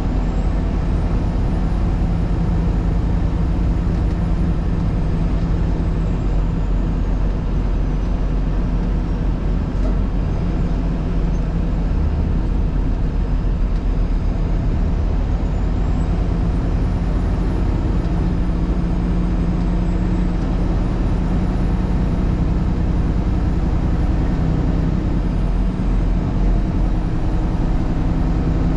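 A vehicle driving steadily on a snowy two-lane highway: continuous engine and tyre road noise with a steady low hum, unchanging throughout.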